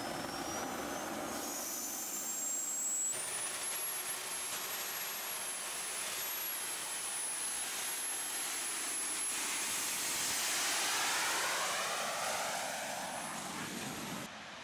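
Home-built propane-fuelled gas turbine engine running: a rushing jet sound with a high whine that climbs in pitch over the first few seconds and then holds steady. It swells about ten seconds in as the turbine-powered go-kart passes.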